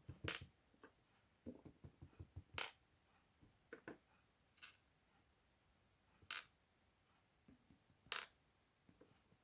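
Small sharp metallic clicks and light taps of tiny lock parts being handled on the bench as key pins are worked out of a disassembled Assa 6000 lock core. There are five clear clicks about two seconds apart, with fainter taps between them.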